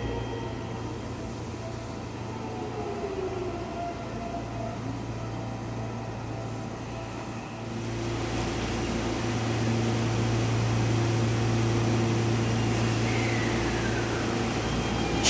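Seibu electric commuter train in a station: the motor whine falls in pitch as a train slows in the first seconds. From about eight seconds in there is a louder steady hum of a train standing at the platform.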